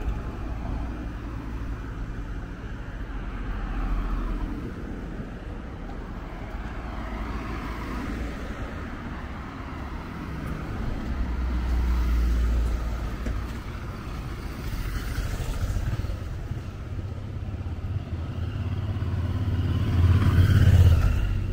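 Street traffic: cars drive past one after another with a steady low rumble, and a motor scooter going by near the end is the loudest pass.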